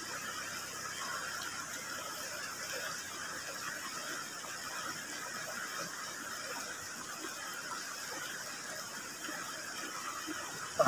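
Steady rush of a shallow, rocky river flowing past, with one brief sharp knock near the end.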